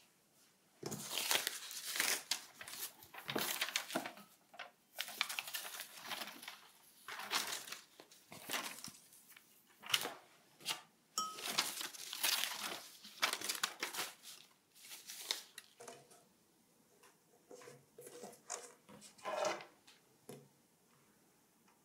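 Packaging wrap crinkling and rustling in irregular bursts as it is pulled off a serving tray. Near the end come softer, sparser handling noises and a few light knocks as the tray is moved.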